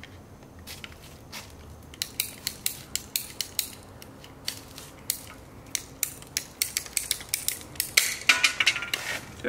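Ratcheting PVC pipe cutter working through 3/4-inch PVC pipe: a run of sharp clicks, about two or three a second, starting about two seconds in and coming faster and louder near the end.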